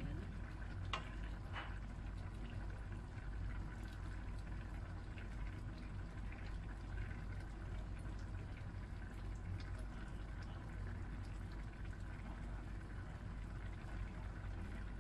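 Paella broth simmering in a frying pan, a steady bubbling over a low hum, with a couple of sharp clicks about a second in.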